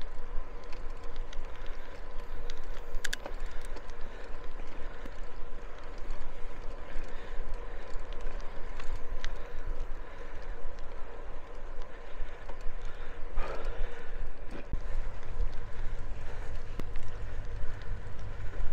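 Wind buffeting the microphone of a camera riding on a moving bicycle, a gusting low rumble over the steady noise of tyres rolling on the path, with a faint steady hum beneath.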